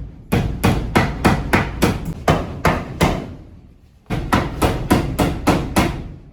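Hammering: two runs of quick, evenly spaced hammer blows, about three a second, with a pause of about a second between them.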